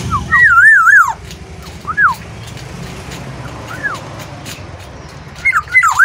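Black-naped oriole singing in loud, fluty whistles. It gives a wavering warbled phrase near the start, single down-slurred notes about two and four seconds in, and a quick cluster of whistles near the end.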